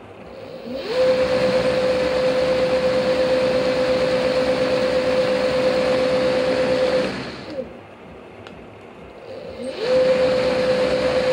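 250 W electric-scooter hub motor spinning a makeshift plastic-tube test rotor. It spins up with a rising whine that settles into a steady high hum over a whoosh of air, winds down about seven seconds in, then spins up again near the end.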